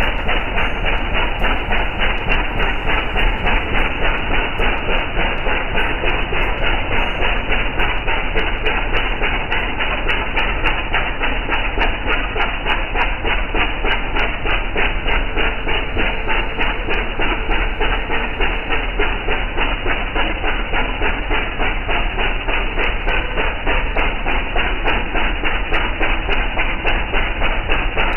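A boat's engine running steadily at speed, with a fast, even chugging beat.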